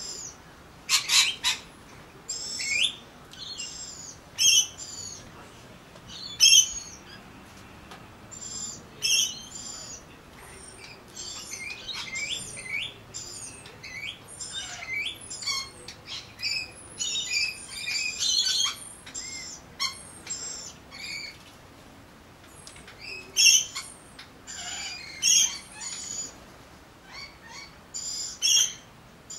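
Birds at a feeding balcony, Australian magpies and small parrots: many short, high, shrill squawks and chirps, coming in quick clusters a second or two apart.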